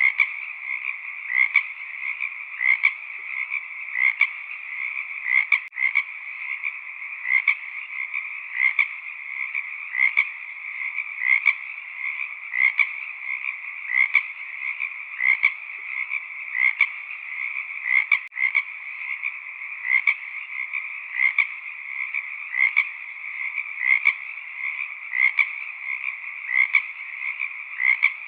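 Frog chorus: a steady, dense calling with one louder call repeating regularly, about every second and a half.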